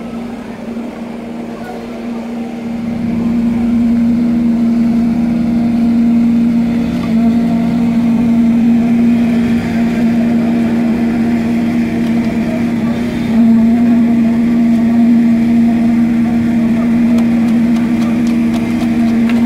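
An engine running steadily at a constant speed, its hum growing louder a few seconds in.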